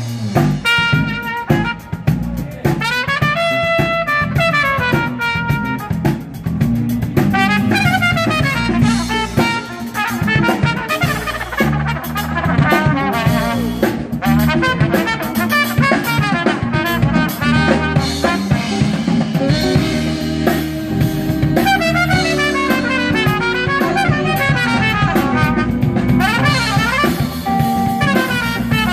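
Live band playing an instrumental jazz-funk passage: trumpet and saxophone lines over a drum kit, electric guitar and bass guitar.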